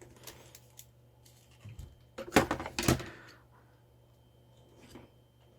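Clicks and knocks of small hard parts being handled on a mechanical keyboard, with a quick run of rattling taps from about two to three seconds in that is the loudest.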